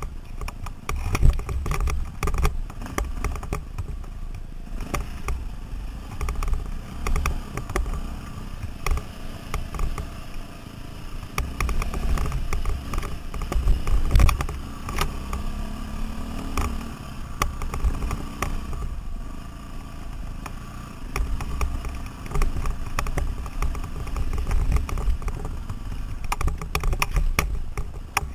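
KTM 530 single-cylinder four-stroke dirt bike engine running under load on a rough, rocky climb, with a heavy low rumble and many sharp rattling knocks from the bike jolting over stones. The engine briefly rises in pitch about halfway through.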